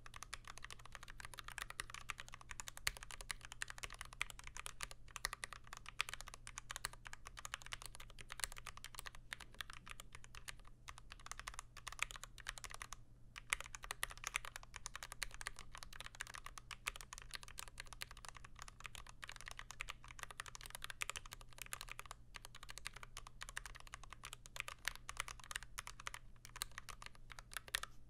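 Steady fast typing on the letter keys of an NK87 aluminum-case keyboard with lubed Gateron Ink Black linear switches and GMK keycaps, without the spacebar. The keystrokes clack in a dense run with one brief pause about halfway through.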